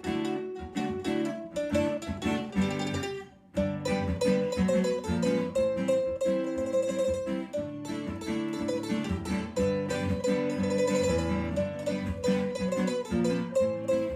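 Background music led by a plucked string instrument such as guitar or mandolin, with a brief pause about three and a half seconds in.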